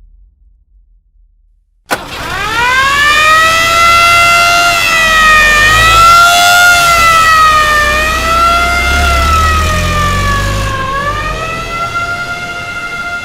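Police vehicle siren switched on about two seconds in with a click, sweeping up and settling into a slow rising-and-falling wail, over the low rumble of the vehicle's engine; the siren grows fainter near the end as the vehicle leaves.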